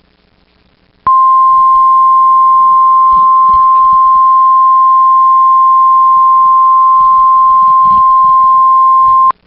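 NOAA Weather Radio 1050 Hz warning alarm tone: one loud, steady high tone that starts about a second in and holds for about eight seconds. It is the alert that comes before a National Weather Service tornado warning broadcast.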